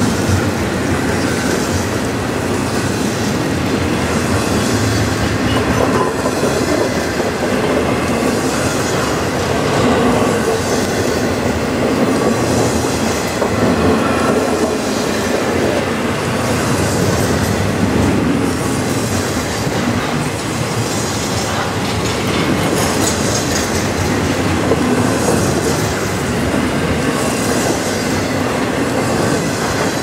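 Double-stack container well cars of a freight train rolling past: a steady rumble of steel wheels on rail, with a clatter that recurs every second or two as each set of wheels passes.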